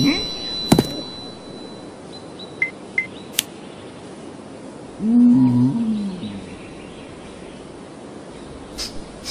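A cartoon caveman's wordless vocal grunt, one pitched sound rising then falling over about a second, midway through. Sharp knocks and clicks come before and after it: one near the start and two close together near the end.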